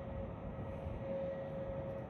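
Steady low rumble of distant jet aircraft engines, with a constant tone held through it.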